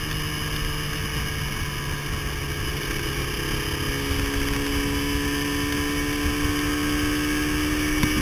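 Motorcycle engine running steadily at cruising speed, with wind rushing over the microphone. The engine note dips slightly about four seconds in.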